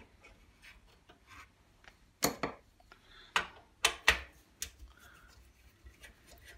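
Small socket screwdriver loosening the 4BA nuts that hold a Dualit toaster's heating elements: irregular metallic clicks and scraping, with a handful of louder clicks around the middle.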